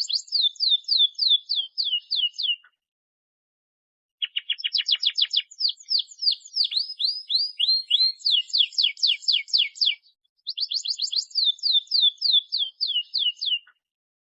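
Canary singing: three phrases of rapid trills, each a run of repeated high downward-sweeping notes, with short silent pauses between phrases.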